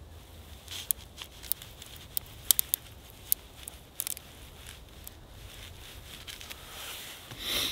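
Wood cracking and snapping in sharp, irregular clicks, with a brief rustle near the end.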